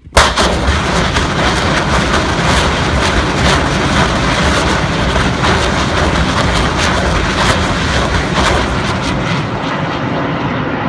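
LARS 2 multiple rocket launcher firing a ripple salvo of 110 mm rockets: a sharp blast as the first rocket leaves, then the continuous loud rush of rocket motors with repeated launch cracks through it, easing slightly near the end.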